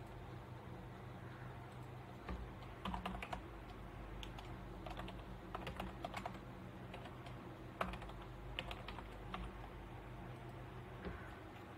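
Computer keyboard typing: sharp keystrokes in short bursts, with pauses between them.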